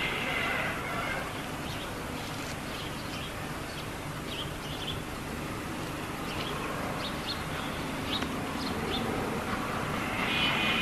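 Birds chirping in short, scattered calls over a steady background hiss and low rumble. Near the end a louder sound with a few steady high tones sets in.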